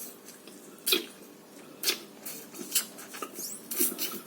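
Wet mouth sounds of someone eating a raw lime slice: a few short smacks and sucking clicks, about one a second, with a quicker cluster near the end.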